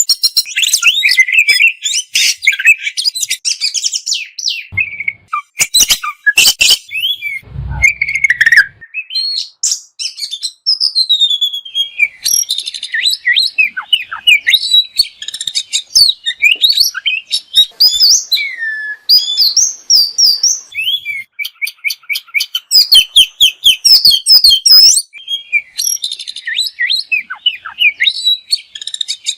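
Oriental magpie-robin (kacer) singing continuously: a fast, varied run of whistles, chatters and mimicked phrases, broken by rapid strings of sharp clicking notes. A brief low thump comes near the 8-second mark.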